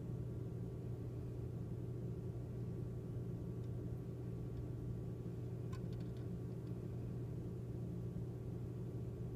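A steady low hum with no speech, and a couple of faint ticks about six seconds in.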